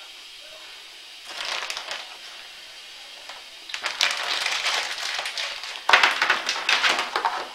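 Crinkling and rustling of food packaging being handled: a short burst about a second in, then a longer stretch of dense crackly rustling from about halfway, loudest near the end.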